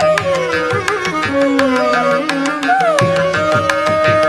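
Carnatic classical instrumental music: a bamboo flute plays a gliding, ornamented melody over a drone, with hand-drum strokes keeping the rhythm. About three seconds in, the flute settles on one long held note.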